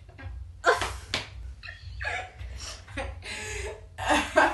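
A young woman's short bursts of laughing and yelling, with no words, over a steady low hum.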